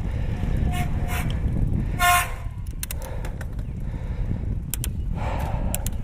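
Front bicycle disc brake held on while riding, squealing in short high chirps, the loudest about two seconds in, then dying away. The squeal is fading because the treated rotor and pads are heating up under hard braking. Underneath runs a steady low rumble of tyres and wind, and a few sharp ticks come in the second half.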